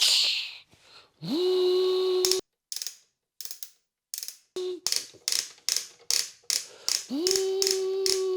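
Toy wrecking-ball machine being turned: a small mechanism whirs up to a steady pitch and holds, then gives a run of ratchety clicks, about three a second, before whirring up again near the end.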